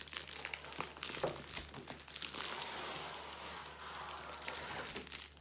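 Clear plastic wrapping crinkling and crackling, with many sharp little clicks, as a tightly packed rolled canvas in a plastic sleeve is slid out of its cardboard box; it dies away near the end.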